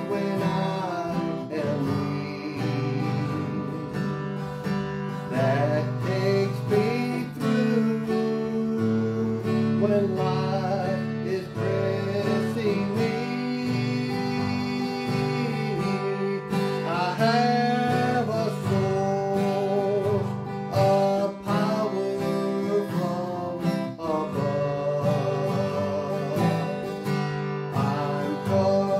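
A man singing a gospel song, accompanying himself on a strummed acoustic guitar.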